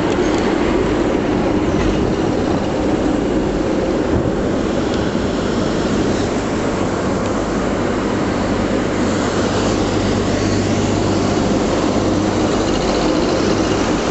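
Freightliner electric locomotive hauling a train of empty container flat wagons slowly past, a steady mechanical hum over the rumble of wheels on the rails.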